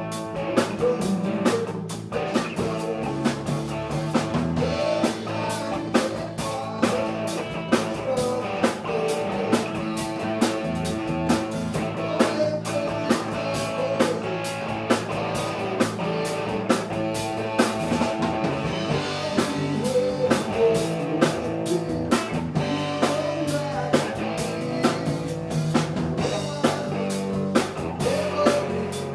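A rock band playing live: electric guitar, electric bass and drum kit, with drum hits on a steady beat.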